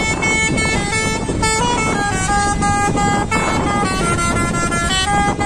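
Telolet multi-tone musical horn on a grocery lorry playing a quick melody of short stepped notes, over the low rumble of the vehicle.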